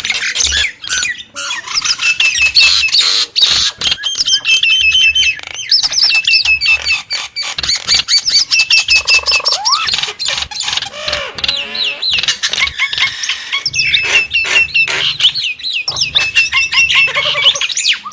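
Nias starling calling in rapid runs of short, sharp, hooked notes, repeated over and over, mixed with many sharp clicks and a few lower sliding notes.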